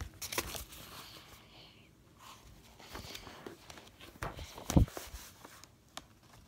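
Pages of a hardcover picture book being handled and turned: soft paper rustling and small taps, with one sharp knock just before the five-second mark.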